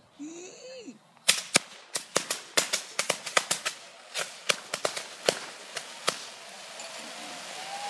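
Ground-level fireworks going off: a brief gliding whistle, then a rapid, irregular string of sharp bangs for about five seconds, loudest at first, giving way to a steady hiss near the end.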